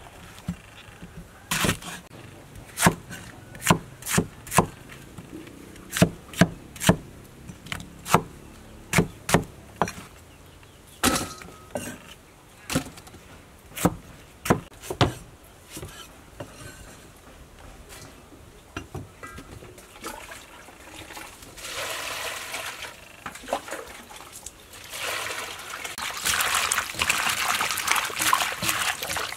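Knife chopping banana flower on a wooden chopping board: sharp, separate knocks at an irregular pace through about the first half. Near the end, hands squeeze and slosh the chopped banana flower in a steel pot of water.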